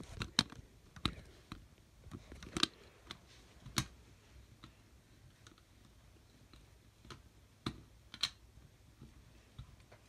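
Scattered sharp clicks and taps at irregular intervals as a screwdriver works the terminal screws on a fire-alarm strobe's metal mounting plate and the small metal parts and wires are handled.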